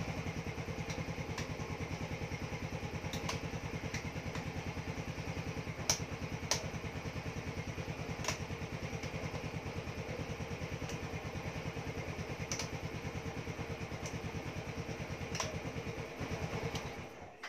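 Yamaha Mio Soul i 125 scooter's single-cylinder four-stroke engine idling steadily, with a few sharp clicks over it. The engine cuts off shortly before the end.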